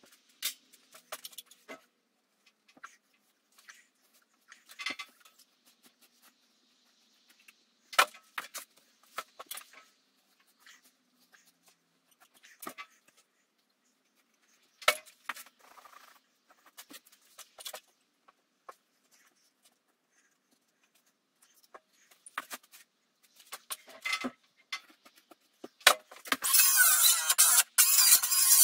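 Scattered knocks, taps and rustles of stone wool insulation slabs being handled and fitted, with a few sharper knocks. Near the end a handheld power saw starts up loudly, cutting a sheet of OSB.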